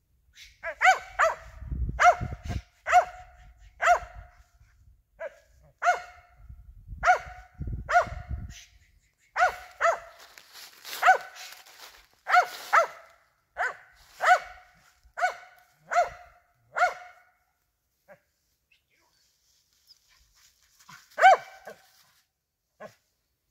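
Squirrel hunting dog barking in a steady run of short, sharp barks of the same pitch, about one a second. It stops, then gives one more loud bark near the end.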